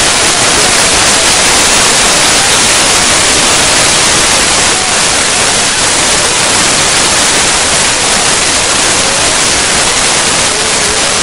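Loud, steady rushing noise with no clear events in it.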